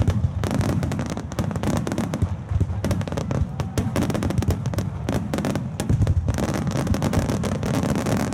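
Aerial firework shells bursting in a rapid barrage: dense, overlapping booms and crackles with no pause between them.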